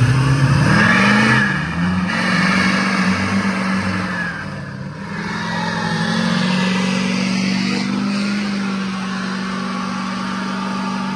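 Lifted pickup truck doing a burnout: the engine is revved up and down a few times, then held at high revs with the rear tyres spinning and smoking against the pavement.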